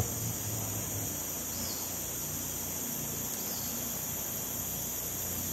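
Steady, shrill chorus of insects from dense riverside forest, a continuous high-pitched drone sounding at two pitches at once.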